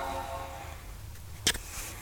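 Fading tail of a Mac startup chime, a sustained chord dying away within the first second, then a single sharp click about a second and a half in.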